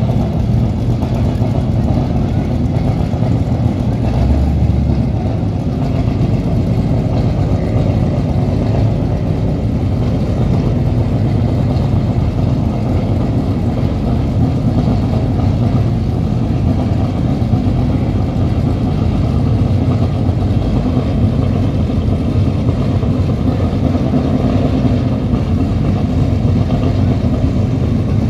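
Powerboat engine idling at low revs: a steady low rumble with a brief low swell about four seconds in.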